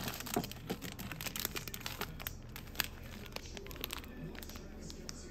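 Crinkly plastic snack wrappers rustling and crackling as a hand rummages through a bin of packaged snacks and pulls one out. It is busiest in the first three seconds and thins out after that.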